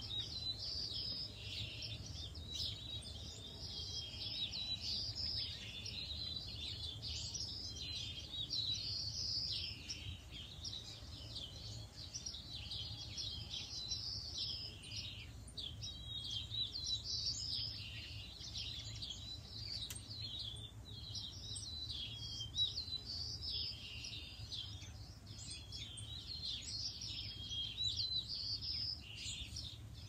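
A flock of small songbirds chirping and twittering nonstop, many calls overlapping, over a faint steady low rumble.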